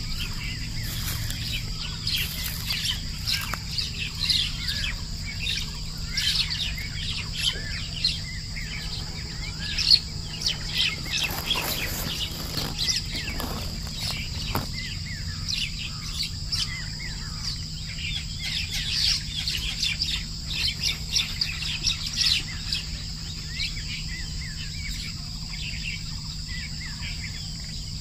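Small birds chirping and calling, many short chirps throughout, over a steady high whine and a low hum.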